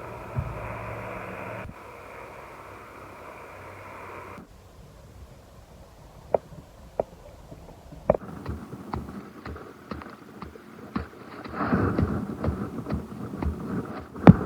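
Sledgehammer pounding soil to compact it: scattered light knocks and scuffing, then one heavy thud into the ground near the end. Before that a steady engine drone, like a passing aircraft, cuts off abruptly about four seconds in.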